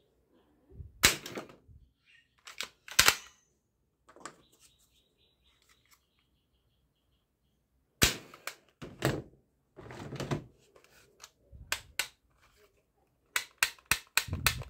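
Toy foam-dart pistol firing: sharp snapping shots and knocks as darts are fired and strike, a few spaced seconds apart. A quick run of clicks comes near the end.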